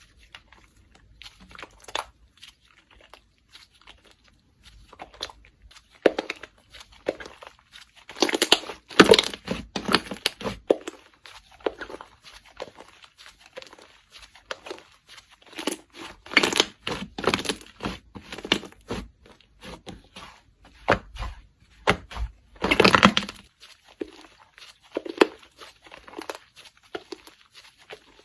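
Slime being pressed, stretched and squished by hand, giving runs of crackling clicks and pops with short quieter gaps between them.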